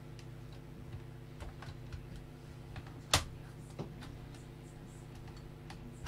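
Light, irregular clicks and taps of hands handling a sheet-metal computer chassis, with one sharper click about three seconds in, over a steady low hum.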